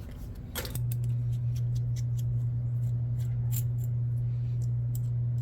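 Small scattered clicks and ticks of hands handling plastic RC wheel and tire parts, over a steady low hum. The hum drops out briefly about half a second in.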